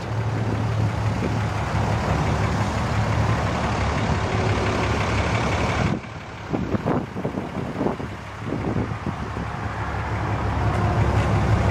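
Cummins 6.7-liter inline-six turbo diesel idling: a steady low drone under a rushing noise that drops away abruptly about six seconds in and then builds back up.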